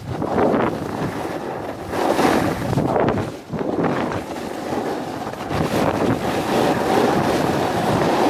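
Wind buffeting the camera microphone over the hiss and scrape of a snowboard sliding on groomed snow, swelling and easing every second or two as the board carves turns.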